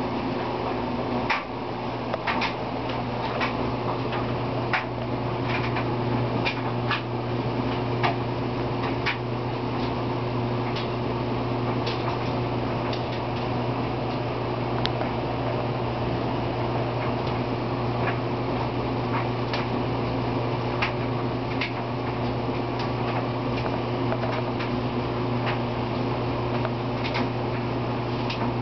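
Steady low mechanical hum, like a running fan or appliance, with scattered light clicks and ticks over it, more of them in the first ten seconds.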